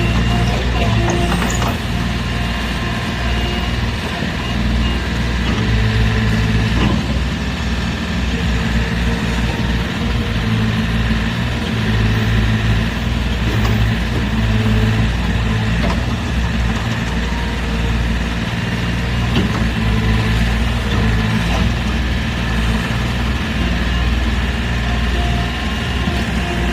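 A heavy-equipment engine idling steadily, a low even rumble, with a few light mechanical clicks.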